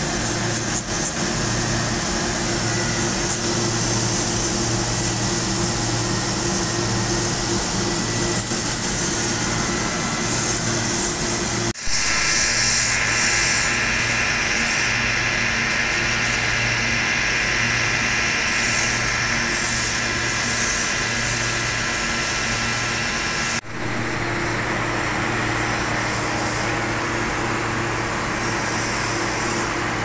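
Pressure washer running steadily, its motor and pump humming under the hiss of the water jet hitting an air conditioner's condenser coil fins. The sound cuts off briefly twice, about 12 and 24 seconds in, and resumes at once.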